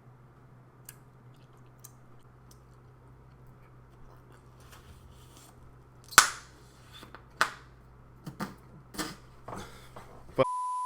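A low steady hum, then from about six seconds in a string of sharp clicks and knocks, the loudest near the start of the string, ending in a short steady beep near the end.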